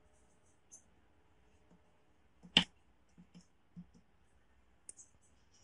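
Near silence broken by one sharp click about two and a half seconds in, with a few faint ticks before and after it.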